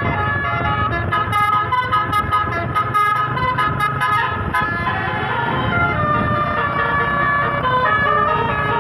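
Tour bus's Basuri-type telolet horn playing a melody: several horn tones sounding together, changing pitch in quick steps in the first half, then holding longer notes.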